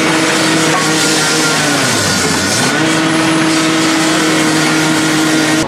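Hydraulic excavator's diesel engine running hard under load, its pitch sagging about two seconds in and coming back up a moment later, with a dense rattling noise over it.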